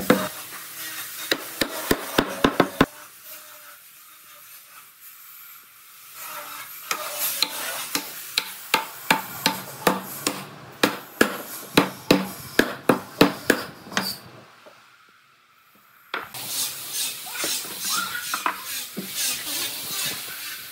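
Tools working hardwood: runs of sharp knocks, two or three a second, with scraping between them. After a brief pause past the middle, a steadier scraping run follows.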